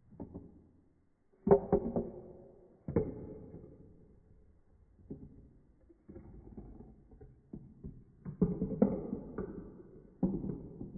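Marbles rolling and clattering down a plastic marble-run track, with several sharp clacks that ring and die away, and a rolling rattle in between.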